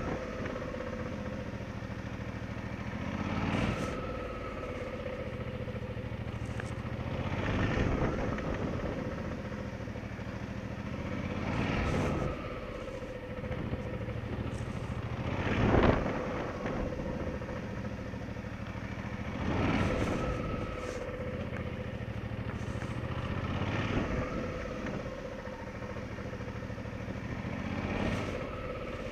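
Motorcycle engine running at low speed as the bike is ridden in slow, tight figure-eight loops, with a steady hum. The sound swells about every four seconds as each turn comes round.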